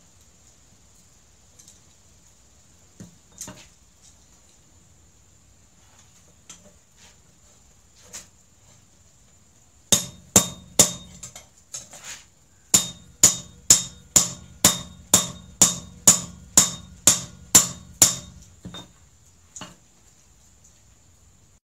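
Hammer blows on a hot adze held in tongs on a small steel post anvil set in a log stump, each strike ringing. A few scattered blows at first, then from about ten seconds in a steady run of about twenty strikes, roughly two a second, with one short pause.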